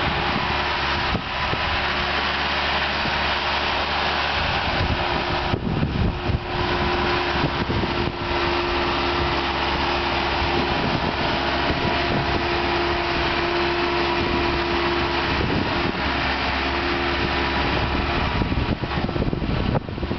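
Skip loader's engine running steadily under load as it grades dirt, with a steady whine held through the middle stretch.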